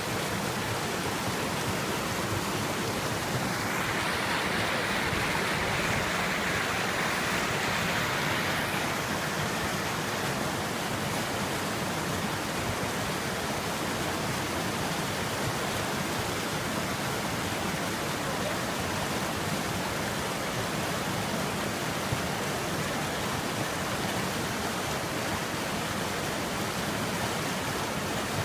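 Steady rushing of a fast mountain river, an even wash of water noise that swells slightly and turns brighter from about four to nine seconds in.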